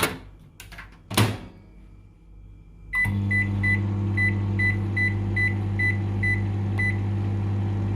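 A couple of clicks, then about three seconds in a microwave oven starts running with a steady low hum. Short high beeps repeat about three times a second over the hum for about four seconds.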